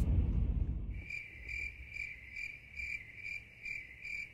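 Insect chirping outdoors at night in a steady rhythm, a little over two chirps a second, starting about a second in as a low rumble drops away.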